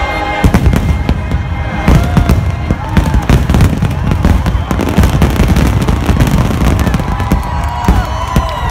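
Aerial fireworks shells bursting in a rapid, dense barrage, a steady run of booms and sharp cracks, over music playing. Near the end a crowd begins to cheer.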